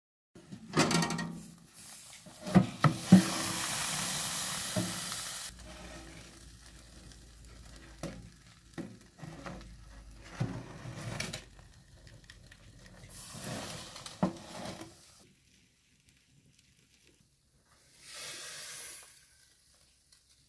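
Cauliflower bake sizzling in a hot metal baking tray as it is handled in a wood stove's oven, with sharp metal clanks in the first few seconds and bursts of hissing.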